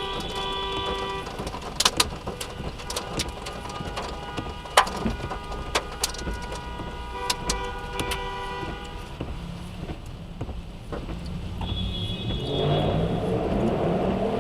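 A multi-chime train horn sounding in long chord blasts, once at the start and again about seven seconds in. Scattered sharp knocks of hail strike the car in between. Near the end a car engine and a rushing noise rise.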